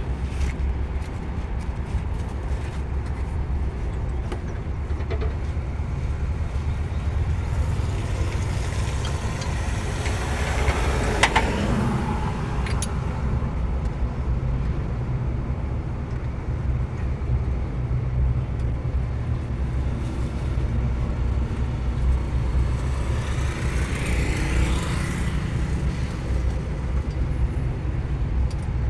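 Nissan March engine running steadily at idle, a continuous low hum, with two brief louder, noisier swells about a third of the way in and near the end.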